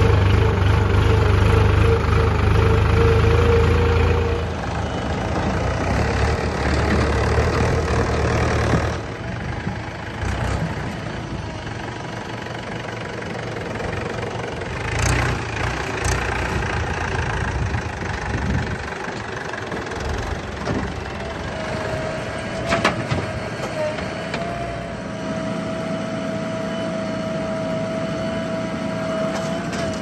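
Diesel engine of a JCB 3DX backhoe loader running while it digs soil and loads a tractor trolley, heaviest for the first few seconds and then easing off. There are a few sharp knocks in the middle, and a steady high whine joins in about two-thirds of the way through.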